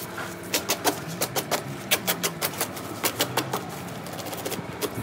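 Plastic wrapping and packing tape being torn and cut off a long cardboard parcel: irregular crackles and rips, several a second.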